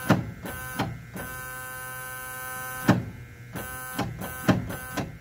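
The starting system of a 1970 XM818 army truck, tried several times: each try brings a sharp click and a steady electric buzz that cuts in and out, and the engine never turns over. The batteries are too weak to crank the engine.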